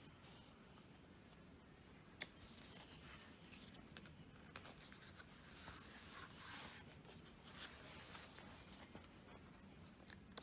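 Near silence with faint rustling of glossy photobook pages being handled and turned, and one small click about two seconds in.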